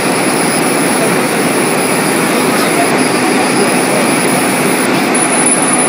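GBOS GB150A 3D dynamic-focus CO2 laser marking machine at work, its fume extraction and air assist making a steady rushing air noise as it engraves. A thin high whine runs along with it and grows louder near the end.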